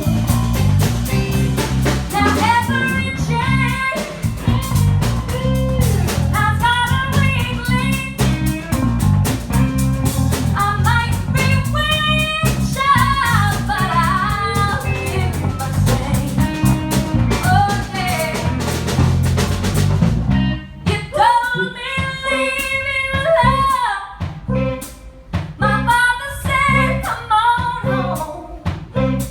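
Live band playing a song with a singer, guitar, bass and drums. About two-thirds of the way through, the bass and drums drop out and the voice carries on over sparser accompaniment.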